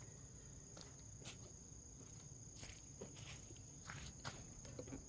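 Near silence: a faint, steady high trill of crickets, with a few soft scattered knocks or footsteps.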